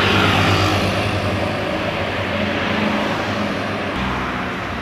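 A tour bus driving past close by: engine hum and the rush of tyre and wind noise, loudest at the start and slowly fading as it moves away.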